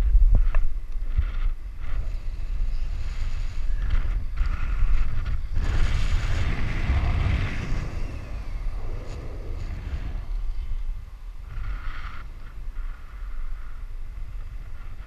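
Wind buffeting the GoPro's microphone as a bungee jumper dangles and swings on the cord: a steady low rumble that swells in the middle and eases off after about ten seconds.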